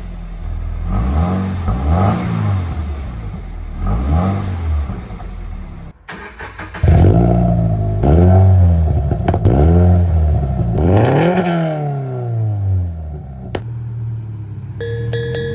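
Subaru BRZ's flat-four engine through a Borla S-Type exhaust, blipped in a series of quick free revs that rise and fall. After a brief break about six seconds in, a louder run of revs follows, then the engine settles to a steady idle.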